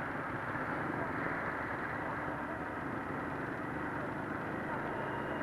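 Motorcycle engines running at low speed in a slow group ride, heard from a helmet camera: a steady drone mixed with wind noise.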